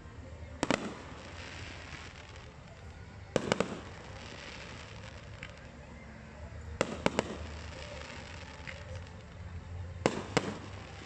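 Fireworks display: aerial shells bursting in four quick groups of two or three sharp bangs, about every three seconds, with faint crackling between the groups.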